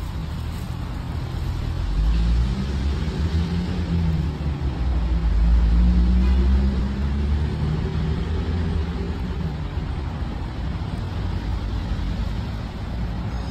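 A motor vehicle's engine rumbling as it passes, swelling to its loudest about halfway through and then fading.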